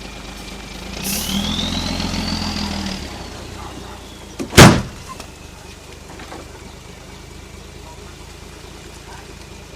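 Heavy diesel earth-moving machine running with a high whine. It revs up for about two seconds, the whine rising and falling, and there is one loud metallic bang about halfway through.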